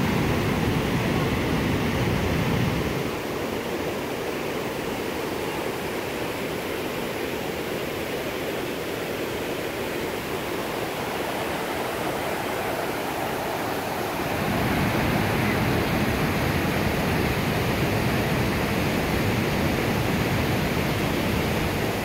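A mountain stream rushing and cascading over boulders, a steady white-water noise. It grows softer about three seconds in and louder again about fourteen seconds in.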